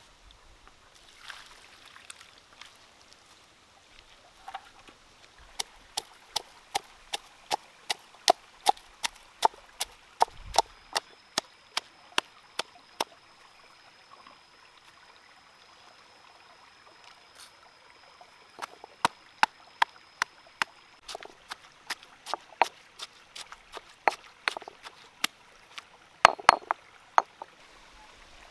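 Stone pestle pounding red chillies and garlic in a stone mortar. Two runs of sharp, evenly spaced strikes, a little over two a second, with a pause between them.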